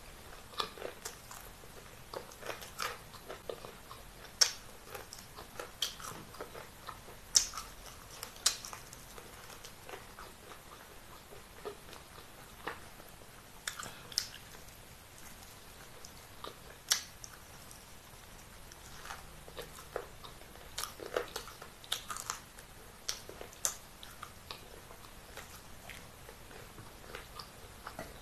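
A person chewing and biting food close to the microphone: irregular wet mouth clicks and crunches, some much louder than the rest.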